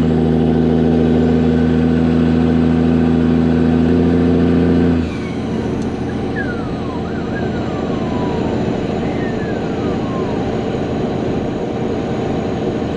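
Dump truck's diesel engine running loud at a steady pitch, then dropping abruptly about five seconds in to a quieter running sound, with a few faint falling whistles.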